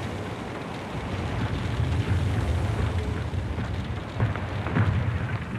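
Low rumble of shell explosions, with louder thuds about four and five seconds in.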